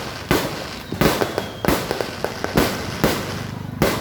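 Aerial fireworks bursting in quick succession, about two sharp bangs a second, each trailing off in a crackling rumble, with faint falling whistles between.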